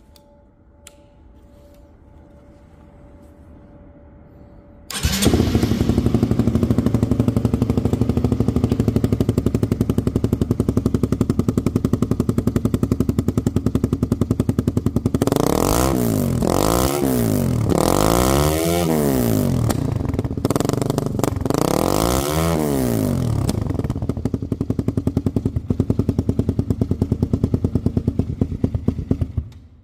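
Honda CBR150's single-cylinder four-stroke engine, heard through its exhaust silencer, starting up about five seconds in and idling steadily. Midway it is revved in several quick blips, each rising and falling, then it drops back to idle and cuts off at the end. This is the bike's exhaust note with the replacement silencer fitted.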